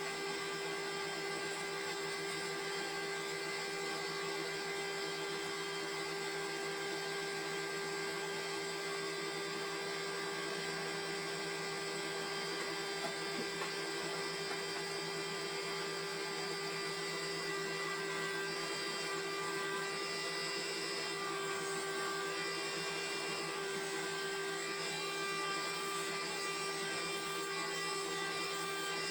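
Wood-Mizer sawmill running steadily, a constant machine hum that holds one pitch without change.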